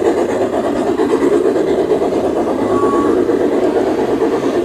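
Garden-railway model freight train of boxcars rolling along the track: a steady, dense clatter of wheels on the rails.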